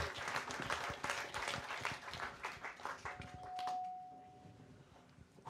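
Audience applauding, many hands clapping, thinning out and dying away over the last couple of seconds. A single steady high tone sounds for about a second and a half midway.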